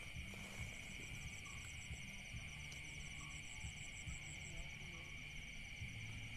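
Night insect chorus: crickets keep up a steady high buzzing with a fast, even trill above it.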